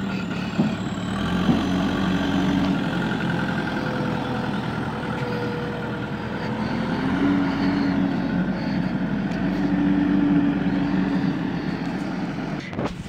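JCB 3DX backhoe loader's diesel engine running under load as the machine drives carrying a heavy concrete pipe in its front bucket, the engine speed rising and falling a few times.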